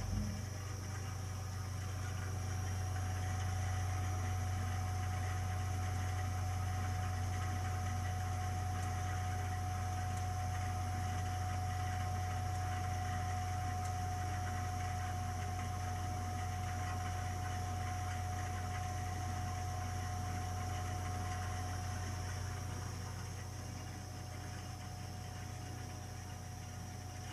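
Burnham Alpine ALP150W gas-fired boiler running with a steady low hum and a steady mid-pitched whine, easing a little near the end: the strange noise the boiler often makes while running, cause unknown to the owner.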